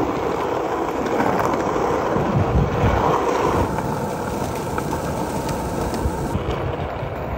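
Skateboard wheels rolling over rough concrete, a steady rumble.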